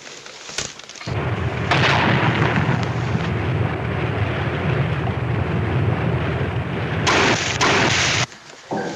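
Sound effect of depth charges exploding: a long, loud underwater rumble with sharp blasts about two seconds in and again near the end, then a sudden cut-off.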